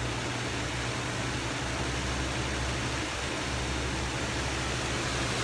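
20-inch electric fan mounted in an attic hatch as a DIY whole-house fan, running steadily: an even rush of moving air over a low motor hum.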